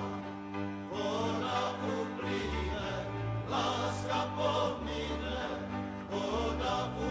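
Background music: a choir of voices singing over held bass notes that change every second or so.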